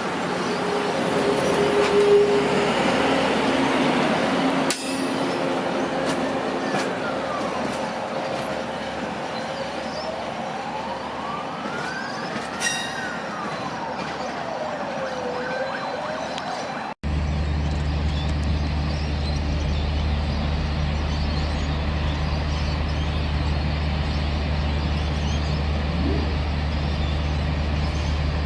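An emergency vehicle's siren wails, sweeping slowly up and down several times over a background rumble. After an abrupt cut, a diesel locomotive running as a light engine idles with a steady low drone.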